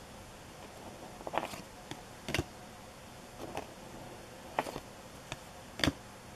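2010 Topps Series 2 baseball cards being flipped one at a time from the front of a hand-held stack to the back. Each card gives a short snap of card stock, about once a second.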